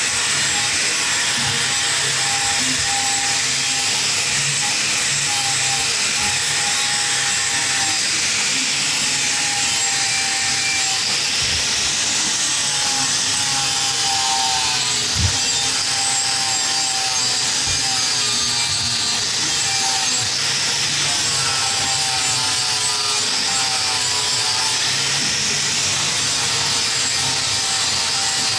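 Angle grinder with an abrasive disc grinding the steel tubing of a Simson S51 motorcycle frame, running steadily with a high grinding hiss, its motor whine wavering up and down as the disc is pressed on and eased off.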